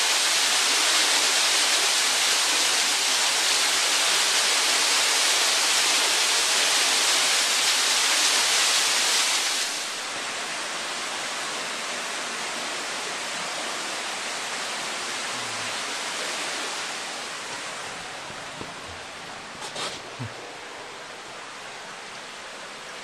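Small waterfall spilling over rock, a steady rushing hiss. It drops noticeably about ten seconds in and fades further near the end, with a few light knocks.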